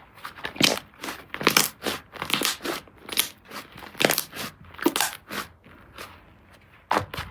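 Slime being worked by hand, giving a run of sharp pops and clicks about two a second, with a short lull about six seconds in.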